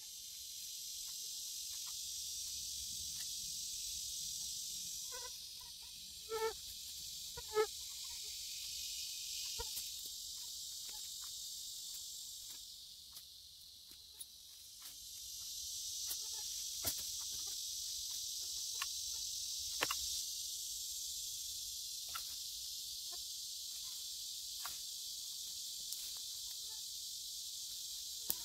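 Steady high-pitched buzz of an insect chorus that fades down twice and comes back, with scattered light clicks and rustles of a trash grabber picking up litter. Three short pitched calls stand out about six to eight seconds in.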